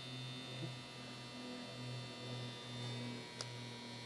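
Steady low electrical mains hum with a slight pulsing in level, and one faint click about three and a half seconds in.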